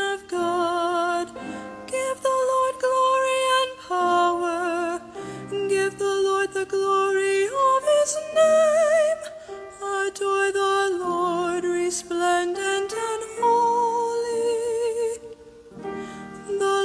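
A woman cantor singing the responsorial psalm in phrases, her held notes with vibrato, over sustained keyboard accompaniment.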